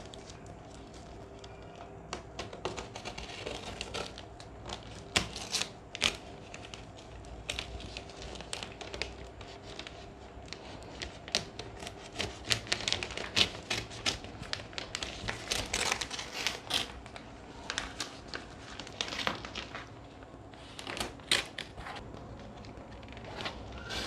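Parcel packaging being cut and torn open with a knife: irregular crinkling, scraping and sharp snaps of wrapping, busiest about halfway through.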